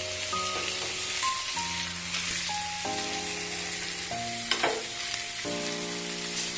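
Whole spice-coated mackerel sizzling in oil on a flat griddle (tawa), with a short scrape of the metal spatula about four and a half seconds in. Background music of held notes plays underneath.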